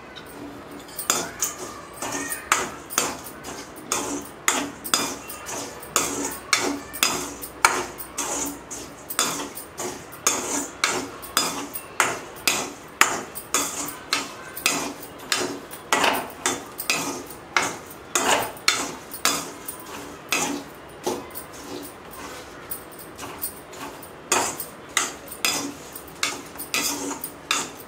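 Perforated steel skimmer scraping and clinking against a stainless-steel kadai, stirring fryums through hot salt, in repeated strokes at about two a second.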